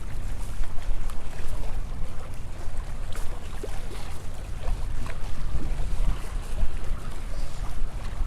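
Strong south wind buffeting the microphone: a gusty, fluctuating low rumble over a steady rush of air.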